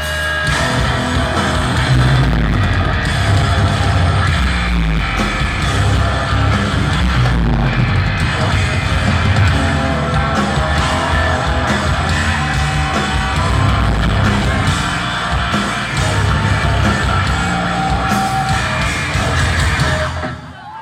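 A rock band playing live, loud, with guitar and vocals. The music drops away shortly before the end.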